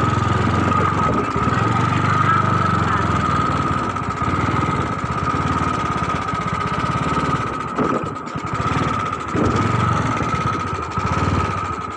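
An engine running steadily at idle, with a constant high whine over an even low pulsing.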